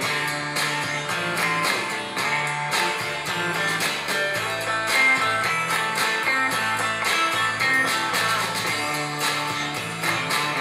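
Aiwa NSX-999 mini hi-fi system playing a song through its speakers: an instrumental passage led by guitar over a steady bass line, with no vocals.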